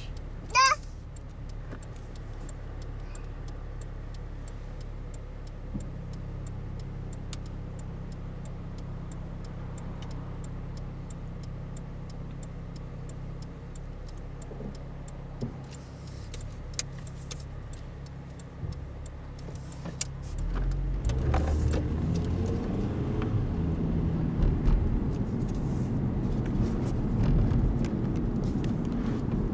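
Car engine idling, heard from inside the cabin. About two-thirds of the way through, the car pulls away and the engine and road noise grow louder as it drives off.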